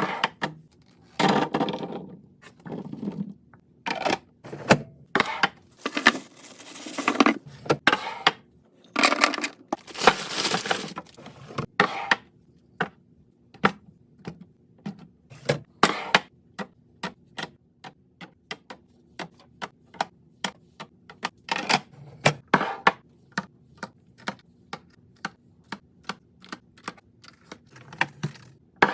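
Containers and items being handled and set down while a fridge is organised: many light clicks and knocks, with a few longer stretches of rustling or scraping.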